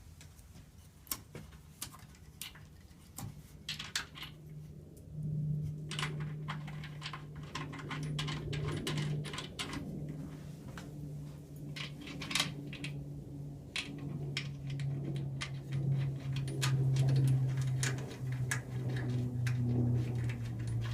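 Small metal clicks and clinks of steel washers and nuts being handled and threaded by hand onto carriage bolts. A steady low hum comes in about four seconds in and grows louder toward the end.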